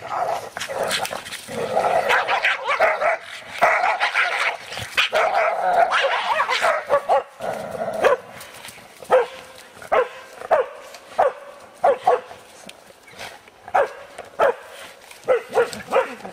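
Dogs barking and yapping during rough play: a dense, overlapping stretch for the first seven seconds or so, then single sharp barks about once a second. The noise comes from a play game between dogs that is escalating.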